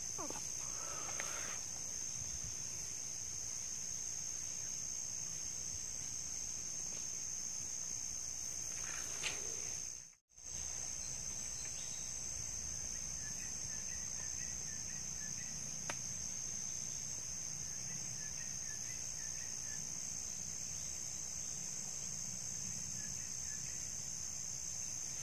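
Steady, high-pitched drone of forest insects, unbroken except for a brief dropout about ten seconds in.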